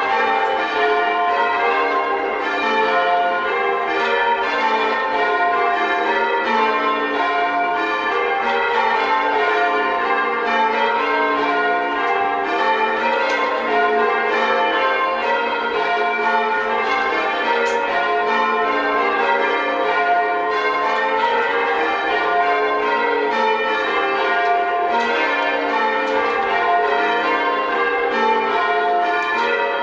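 Change ringing on a ring of six church bells with a 14 cwt tenor, the bells striking one after another in a steady, unbroken rhythm.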